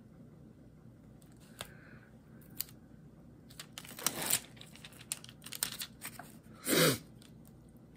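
Diamond-painting drill pen tapping and picking small resin drills out of a plastic tray, with light clicks and plastic crinkling. A louder rustle comes about four seconds in and a short, loudest one just before seven seconds.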